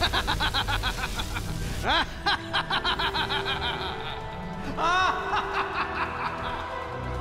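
Cartoon villains laughing in quick, rhythmic 'ha-ha' pulses over background music. The laughter comes in a few bursts, with rising swoops of pitch.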